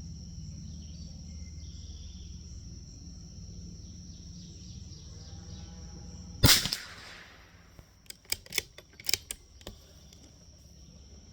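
A single shot from a Bergara B14R bolt-action .22 LR rifle firing Geco 40-grain lead round nose ammunition, sharp and brief, about six and a half seconds in. It is followed a second or so later by a quick string of metallic clicks as the bolt is worked to eject the spent case and chamber the next round.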